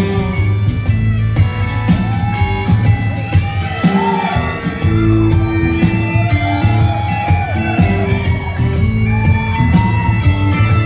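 Live band music: bagpipes with a steady drone and melody, playing along with electric guitar, upright bass and a drum kit keeping time on the cymbals.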